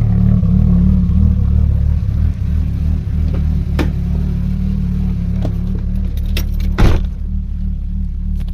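A turbocharged 4.0-litre Intech SOHC straight-six in a Ford AU Fairlane runs steadily at low speed as the car is moved, giving a low, even rumble. A few sharp clicks sound over it, with one louder knock about seven seconds in.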